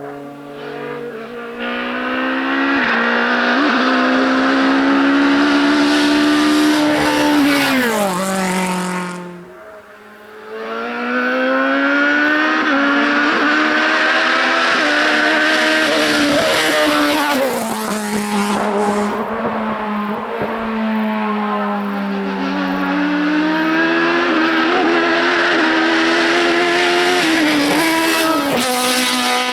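Racing car engine revving hard up through the gears, its pitch climbing and dropping back at each upshift. It fades away about nine seconds in, then a car revs up through the gears again.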